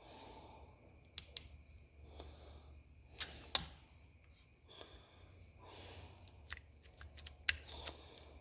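Sharp metallic clicks of a key being pushed into and pulled out of a lock cylinder while a thin metal shim is worked in behind the plug, the pins clicking as the key moves. The clicks come singly and in pairs, the loudest about three and a half seconds in.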